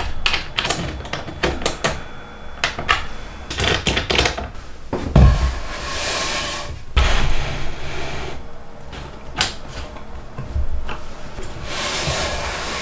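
Wooden knocks, taps and clatter as a plywood jig is adjusted and boards are set on it, with a scraping hiss as a board slides across the plywood. There is a heavy thump about five seconds in and another about two seconds later.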